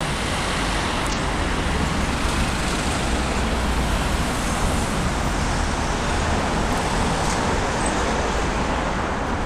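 Steady road traffic noise on a busy city street, a constant hum of passing vehicles.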